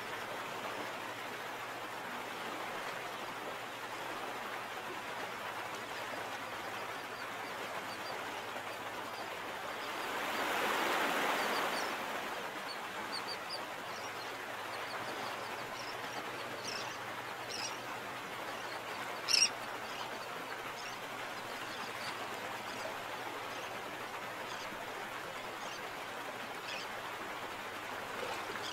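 Sea ambience: a steady wash of water with scattered calls of water birds. A swell of rushing noise rises and falls about ten seconds in, and one call about two-thirds of the way through stands out louder than the rest.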